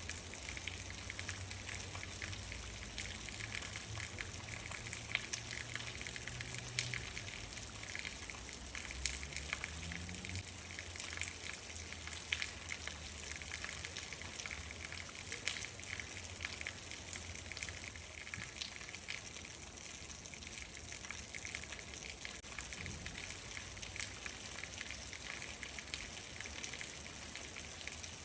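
Steady rain, with many separate drops pattering through an even wash of falling water. A low hum lies underneath for about the first ten seconds, then fades.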